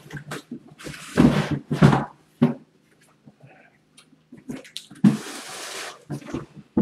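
Cardboard boxes being pulled from a stack and handled: rustling and scraping of cardboard, with loud bursts about one to two seconds in and a longer one about five seconds in. A faint steady low hum sits underneath.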